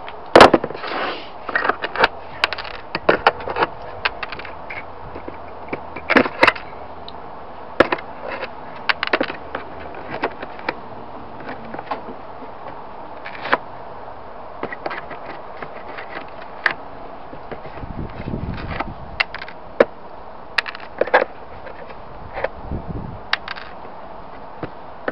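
Hand tools pulling nail pins out of a timber cabinet panel: irregular clicks, taps and knocks of a hammer and pliers on wood and metal, with a hammer knock the loudest, right at the start.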